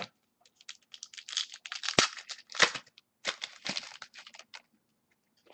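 Crinkling and rustling of clear plastic card sleeves and wrapping as trading cards are handled and shuffled, with sharp clicks in quick irregular runs that stop shortly before the end.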